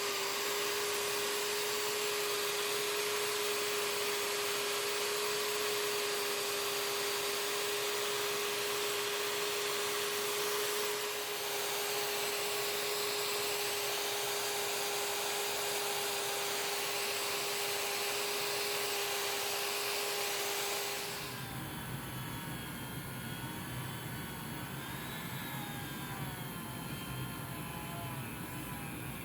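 Small electric power tool, a rotary tool, running steadily with a constant whine while polishing metal. About 21 s in the sound changes to a quieter running noise with wavering higher tones.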